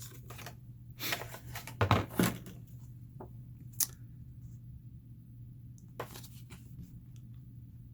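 Plastic and cardboard packaging of a skateboard tool being torn and handled open, in several rustling, tearing bursts, with one sharp click a little under four seconds in. A low steady hum lies underneath.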